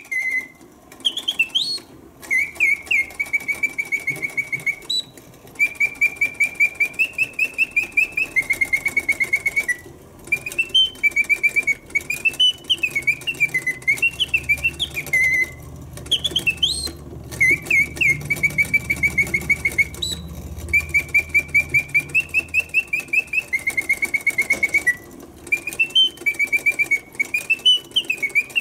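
Singing bird automaton in a birdcage, its mechanical whistle giving chirps, upward slides and rapid trills in short phrases with brief pauses, the same song sequence coming round again about every 15 seconds. A faint mechanical whir from the movement in the base runs beneath it.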